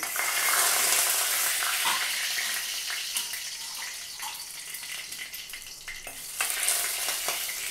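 Hot oil sizzling in a steel kadai during tempering, with mustard seeds spluttering and a steel ladle stirring and knocking against the pan. The sizzle is strongest at the start, fades, and swells again near the end.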